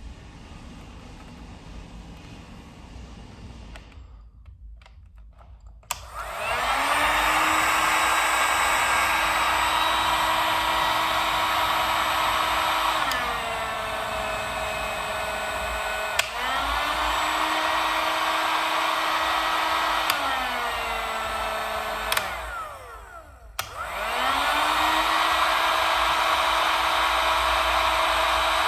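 DEKO HG2300W heat gun's fan motor switched on a few seconds in and running steadily. It drops to a lower speed and back up, drops again, is cut off, starts up again and winds down near the end.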